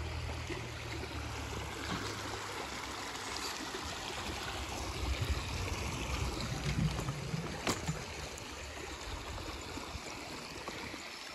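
Shallow creek running over stones, a steady rush and trickle of water. One sharp click comes about two-thirds of the way through.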